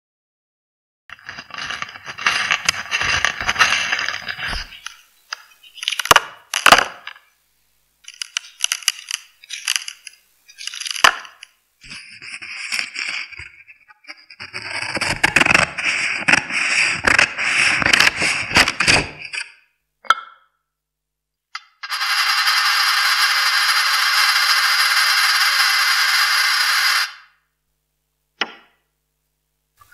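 Close-up handling sounds picked up through a DIY contact microphone: several short bursts of scraping and clicking. In the middle comes a dense run of sharp snips as scissors cut through a sheet of paper. Later there are about five seconds of steady, even rubbing noise, then a single click near the end.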